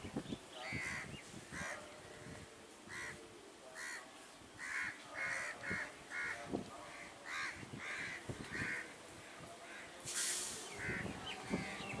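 Crow cawing over and over, short harsh caws about one or two a second. About ten seconds in there is a brief rush of noise.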